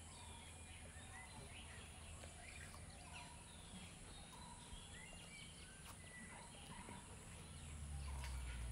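Faint birdsong: many short chirps and whistles at different pitches, scattered throughout, over a low hum that grows louder near the end.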